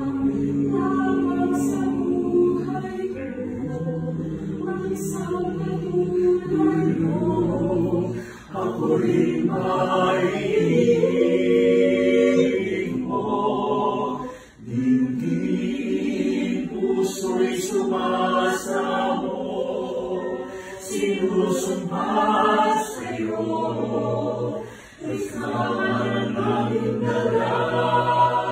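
A small choir singing a cappella in harmony, held chords in several voices with short breaths between phrases about 8, 14 and 25 seconds in.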